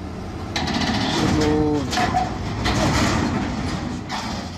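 Crawler excavator's steel tracks clanking and scraping as the machine slips off the edge of a lowboy trailer, with its diesel engine running underneath. The clatter comes in about half a second in and is a rapid run of clicks and knocks.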